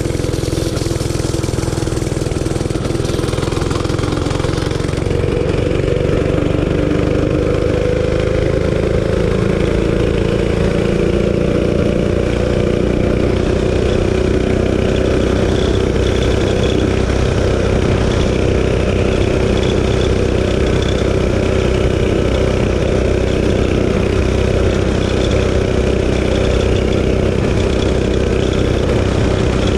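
Realtree RT200 mini bike's 196cc single-cylinder four-stroke engine running hard on a custom exhaust with its governor spring zip-tied. Its pitch rises over the first several seconds, then holds steady at top speed, with wind rumble on the microphone.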